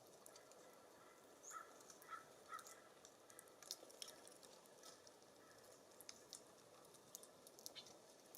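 Faint wild birds at a feeder: a few short chirps about one and a half to two and a half seconds in, with scattered small clicks throughout.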